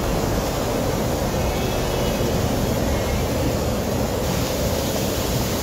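A steady, loud rushing noise with no distinct knocks or cracks in it.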